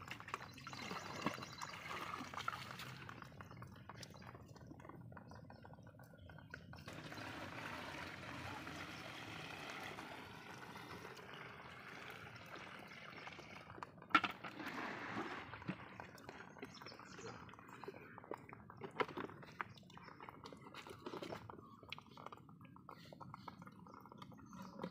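Water splashing as a bucket is dipped, then poured from the bucket into the end of a water pump's hose in several pours, filling it to prime the pump.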